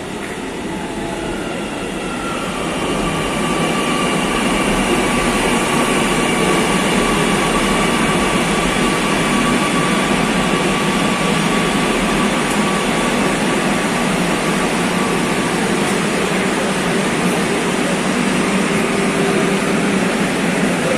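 Kochi Metro train pulling in to the platform: its rolling noise builds over the first few seconds and then holds steady. An electric whine of held tones runs over the noise and fades out after about sixteen seconds.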